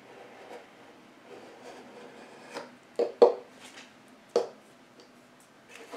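A craft knife cutting along the edge of watercolor paper mounted on a cradled wood panel, a faint scraping, then three sharp clicks about halfway through.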